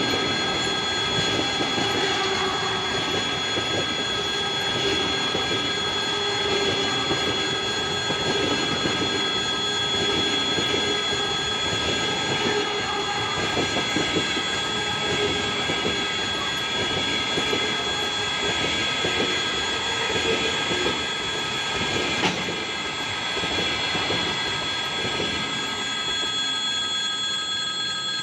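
Passenger train rolling past on the rails: a steady, continuous rumble of coach wheels over the track, with steady high-pitched ringing tones over it and a single sharp click about three-quarters of the way through.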